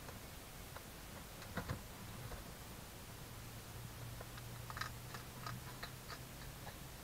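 Hedgehog crunching dry food, kibble and dried mealworms, from a bowl: scattered crisp clicks, two louder ones about a second and a half in and a quick run of them around five seconds. A faint low hum comes in about halfway.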